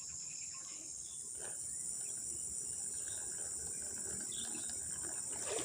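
Steady high-pitched insect chorus, a continuous trilling drone.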